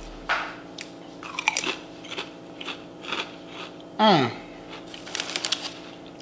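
Crunching and chewing of Doritos tortilla chips, bitten off and chewed in a string of short crisp crunches. About four seconds in comes one loud sound that slides down in pitch.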